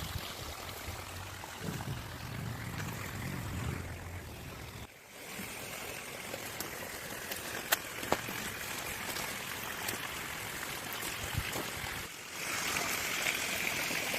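Steady rush of flowing, falling water, with a low rumble under it at first. The sound changes abruptly about five seconds in and again near the end, where the hiss turns brighter and louder.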